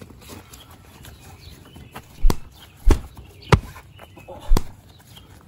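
Four heavy punch thumps in a fistfight, coming about two seconds in and spaced half a second to a second apart.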